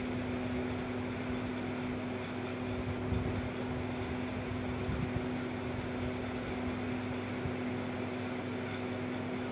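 Steady background hum with a constant low tone over an even hiss.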